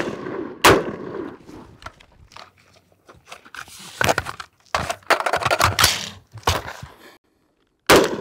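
Several shots from an AR-15 rifle fired from the prone with its magazine resting on the ground, spaced irregularly with a longer gap after the first, each ringing out briefly; the rifle keeps cycling without a malfunction.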